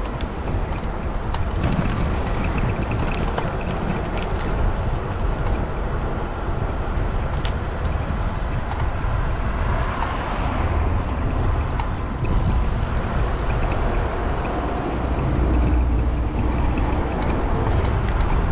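Steady street traffic and road noise with a low wind rumble on a bicycle-mounted camera while riding, swelling briefly about ten seconds in.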